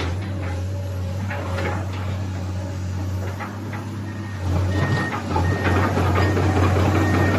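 Komatsu PC200-8 excavator's six-cylinder diesel engine running steadily, with scattered metallic clanks and knocks. About halfway through it grows louder and a high, short beep starts repeating about every half second.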